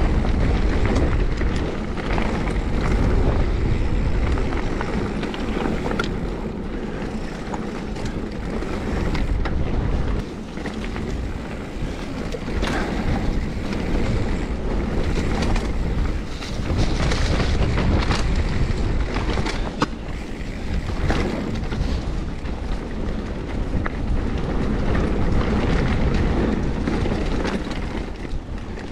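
Mountain bike riding along a dirt trail: wind buffeting the microphone over the rumble of the tyres, with frequent sharp clicks and knocks from the bike.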